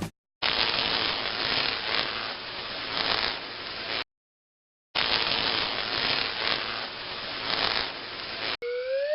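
A rough, noisy sound effect plays twice, each time for about three and a half seconds, with a sudden cut and a short gap of silence between. Near the end a smooth rising whistle begins.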